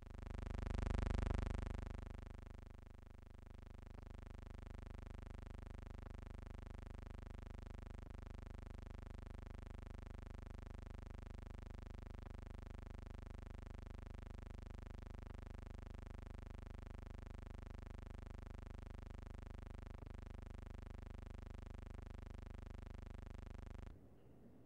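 A faint, steady mechanical drone, like an engine running at constant speed, made of several even tones. It follows a louder rushing swell in the first two seconds and cuts off suddenly near the end.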